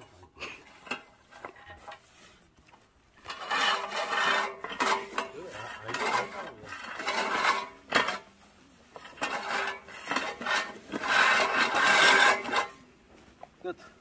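Push reel lawn mower's spinning blades whirring and clicking against the cutting bar as it is pushed through grass, in four runs of one to two seconds each with short pauses between.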